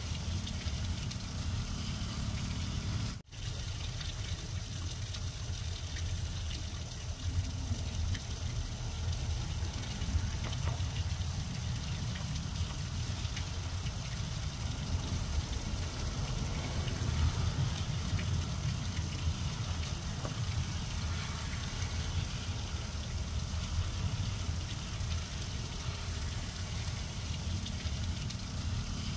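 Steady heavy rain pouring onto grass and bare soil, with a steady low rumble underneath. The sound drops out for an instant about three seconds in.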